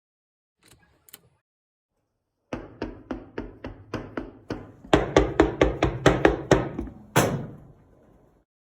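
A rapid, even run of sharp knocks, about five a second, starting a couple of seconds in. They get louder about halfway through and end with one heavier thud that rings on briefly.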